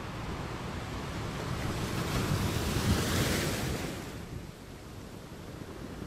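Ocean surf: a wave builds and crashes about three seconds in with a loud rushing hiss, then dies away into a lower wash.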